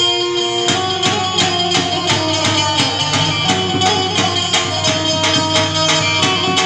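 Instrumental music with a steady, quick percussion beat under held melody notes.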